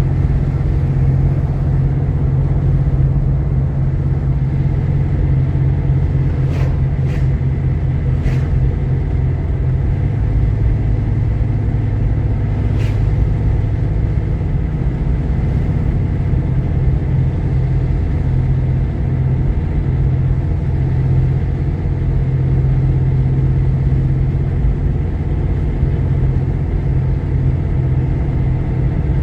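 Steady low engine and road rumble heard inside the cabin of a moving Jeep Grand Cherokee with a 3.7L V6. A few faint clicks come about a quarter of the way through and once more near the middle.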